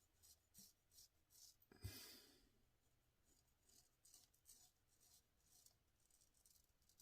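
Faint, short scraping strokes of a Wade & Butcher 7/8 near-wedge straight razor cutting lathered stubble, with one louder rasp and a low knock about two seconds in.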